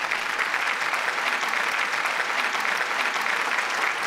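Crowd applause: a dense, steady clapping.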